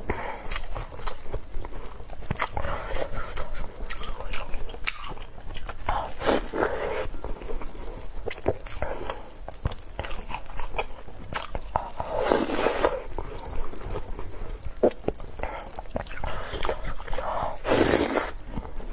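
Close-miked eating: one person's mouth clicks, wet chewing and lip smacking as she bites into and eats a soft snack, with louder bites about six, twelve and eighteen seconds in.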